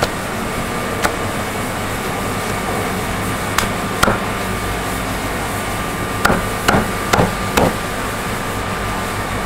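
Cleaver chopping a grilled chicken on a thick wooden chopping board: about eight sharp knocks, spaced out at first, then four in quick succession from about six seconds in, over a steady background hum.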